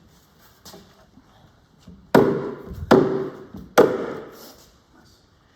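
Three heavy blows on a wooden shelf panel, each with a short ringing tail, spaced under a second apart: knocking the panel down onto its domino joints.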